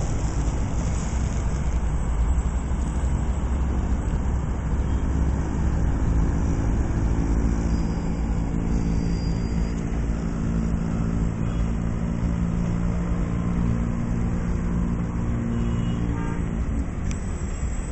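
Passenger train running: a steady low rumble and hiss, with a held droning tone, a train horn or the locomotive's engine note, from about five seconds in that fades out near the end.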